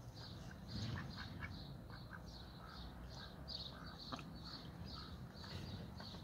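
Domestic ducks giving short, scattered quacks over a faint high chirping repeated about three times a second.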